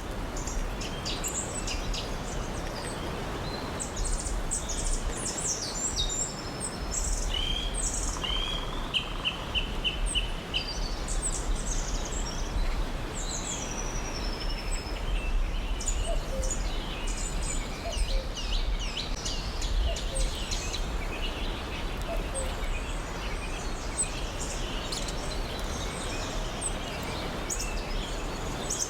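Several birds chirping and calling over a steady background of hiss and low rumble, including a quick series of about five short, even notes around eight seconds in.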